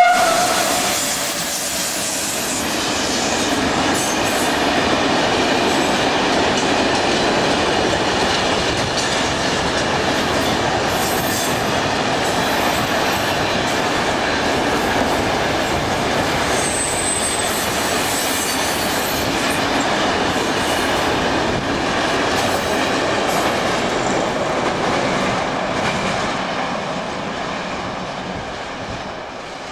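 Long freight train of covered goods wagons, hauled by an FS E655 electric locomotive, rolling past: a steady rumble of wheels on rail with high squealing from the wheels. The sound fades over the last few seconds as the train moves away.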